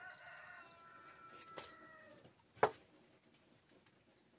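A drawn-out animal call: several steady pitched tones held for about two seconds, sagging slightly at the end. A single sharp knock follows a little later and is the loudest sound.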